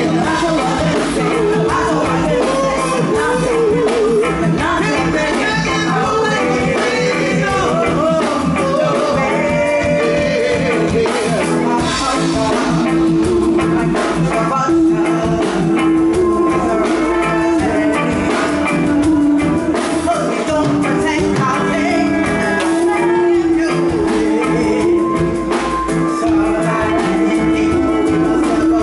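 Live reggae song: several singers in a vocal group sing over a backing band.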